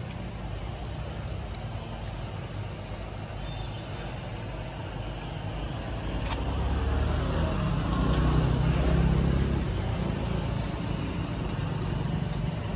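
A motor vehicle passing, over a steady low rumble of traffic: the engine noise swells about six seconds in, peaks, and fades again a few seconds later. A short click sounds just as it begins to swell.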